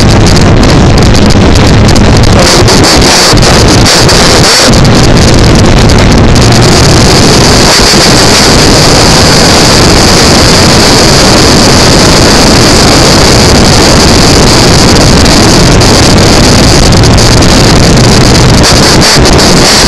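Very loud wind rush on a leather-cased camera mounted on a moving Triumph Trophy motorcycle, with a steady high-pitched screeching over the top that grows stronger a few seconds in. The motorcycle's engine barely shows through underneath.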